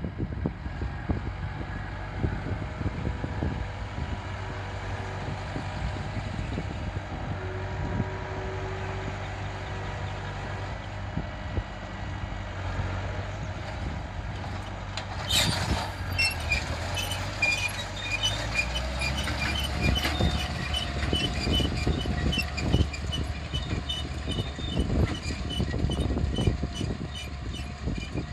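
Tractor engine running steadily, its note dropping lower about three-quarters of the way through. A brief loud rush about halfway through is followed by regular rapid ticking.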